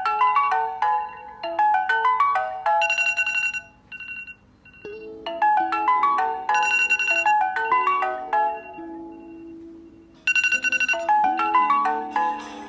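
A tablet's ringtone playing: a bright chiming melody of quick notes, repeating as a phrase about every five seconds with a short pause between phrases.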